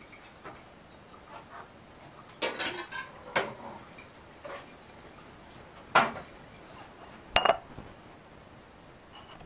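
Ceramic dishes and metal cutlery being handled: scattered light knocks and clatter, a sharp knock about six seconds in, then two short ringing clinks about a second and a half later.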